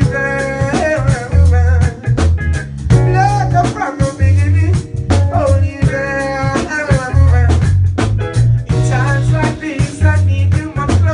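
Live reggae band playing, with a man singing into a handheld microphone over a prominent bass line and drums.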